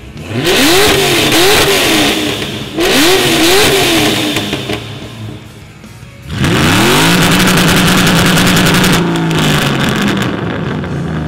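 Ford Mustang V8s revved through loud exhausts for a decibel-meter test. First a Fox-body Mustang 5.0 LX gets two pairs of quick throttle blips. Then, about six seconds in, a 2005–09 Mustang GT's V8 is revved up, held at high rpm for about two seconds, and falls back toward idle.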